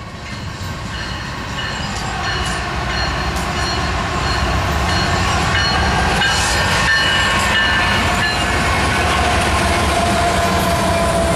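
A train of GE diesel locomotives, led by an ES44C4, approaching and passing close by: engine rumble and wheels on the rails. The sound grows steadily louder over the first four seconds or so, then stays loud as the locomotives go by.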